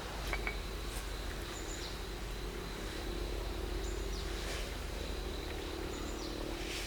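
Rural outdoor ambience: a bird gives short high chirps three times over a steady high insect drone.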